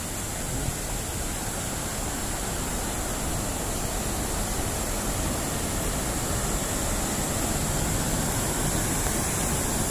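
Water rushing steadily over a small weir and down a shallow rocky stream, growing slightly louder.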